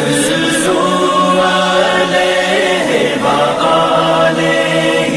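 Devotional nasheed backing track: layered a cappella voices singing long held notes together, the pitch shifting every second or so.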